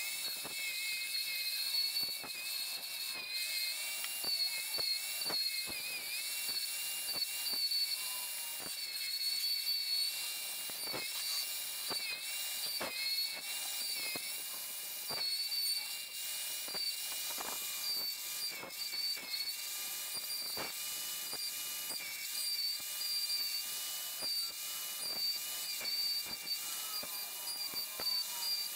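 Bandsaw running, its blade cutting through a sheet of Micarta to free knife scales: a steady high whine over a hiss, with many small ticks. The whine dips briefly in pitch a few times.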